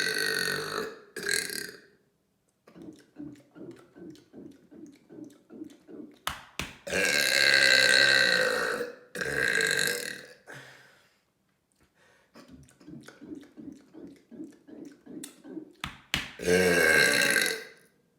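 A person burping loudly, one long burp after another: one at the start, a long one about seven seconds in with a shorter one after it, and another near the end. Between them come quieter rhythmic pulses, about three a second.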